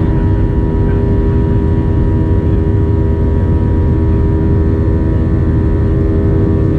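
Cabin noise inside a Boeing 737-700 climbing after takeoff: the CFM56-7B turbofan engines' steady loud drone, a deep rumble with several steady whining tones over it, heard from a window seat just ahead of the engine.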